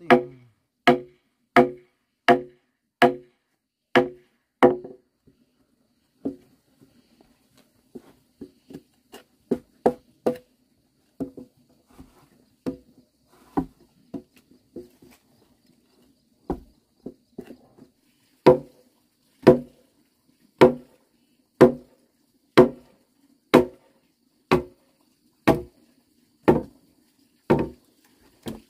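Axe chopping into timber: a steady series of sharp wooden chops, with lighter, irregular taps in the middle stretch, then loud strokes about once a second from about two-thirds of the way in.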